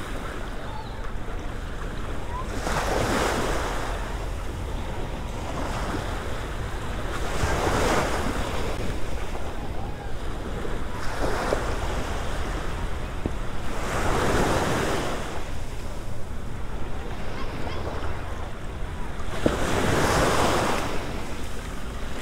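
Small Gulf of Mexico waves washing up onto a sandy beach, one swell of surf about every four to five seconds, about five in all. A steady wind rumble runs on the microphone underneath.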